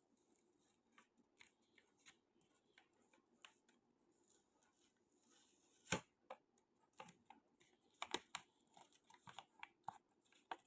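Faint handling of a thin paper envelope as it is opened: scattered light paper rustles and small clicks, with one sharper click about six seconds in and a cluster of clicks near the end.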